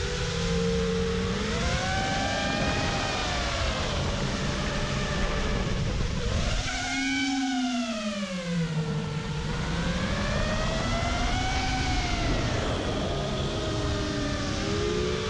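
FPV quadcopter's T-Motor F60 Pro II 2700kv brushless motors whining, the pitch rising and falling in slow swoops as the throttle changes under GPS return-to-home, over a steady rush of noise.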